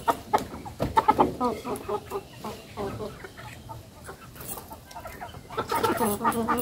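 Chickens clucking in short, repeated calls, busiest in the first couple of seconds and again near the end, with a few sharp knocks in the first second.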